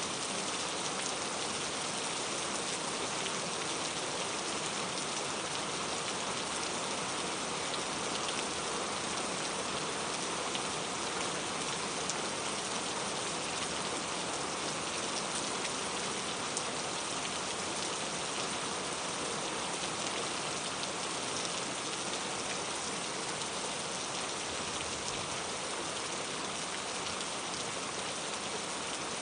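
Steady rain falling, an even hiss of drops with fine patter, unchanging throughout.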